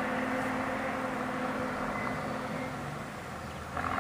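Honeybees buzzing around an open hive, one bee flying close by giving a steady, even hum that drops lower and fades about three quarters of the way through.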